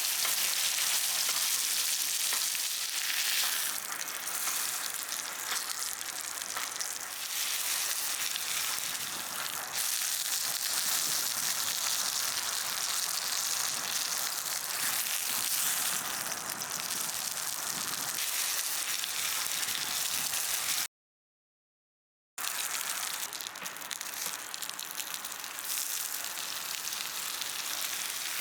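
Steak sizzling as it fries, a steady crackling hiss, broken by a moment of dead silence a little over two thirds of the way through.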